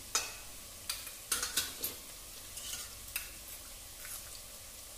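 Chopped onion frying in hot oil in a clay pot with turmeric just added: a steady sizzle with scattered sharp pops and clicks, most of them in the first two seconds.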